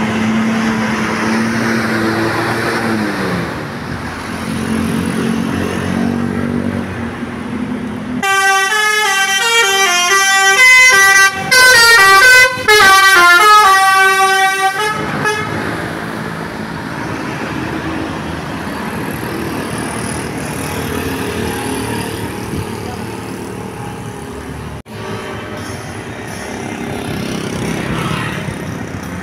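Bus telolet horn, a Basuri multi-tone air horn, playing a quick tune of stepping notes for about seven seconds, with two very short breaks. Before and after it, a vehicle engine runs with road noise.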